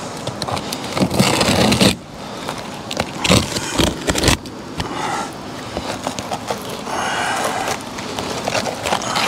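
A utility knife scraping through asphalt roofing shingles as they are cut along the line of a closed valley, in rough strokes, the longest about a second in and again at three to four seconds.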